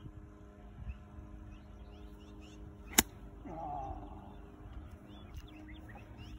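Golf iron striking the ball on a full fairway shot: a single sharp crack about three seconds in.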